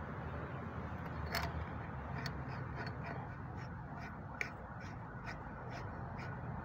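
Light, sharp metallic clicks at uneven spacing, roughly two or three a second, as a threaded galvanized pipe fitting is turned by hand onto a water pump's outlet, over a steady low hum.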